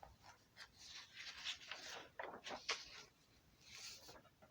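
Faint rustling and scratching close to the microphone, in short irregular strokes, with a sharp click a little before three seconds in.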